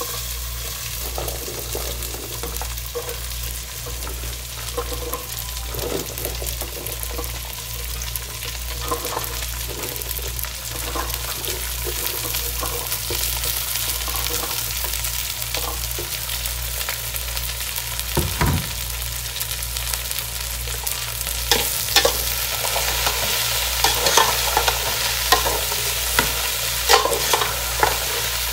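Chopped okra and onions frying with a steady sizzle in an aluminium pot, while a metal ladle scrapes and clicks against the pot as the okra is tipped in and stirred. A single low thump comes about 18 seconds in, and the ladle clicks come thicker and louder in the last several seconds.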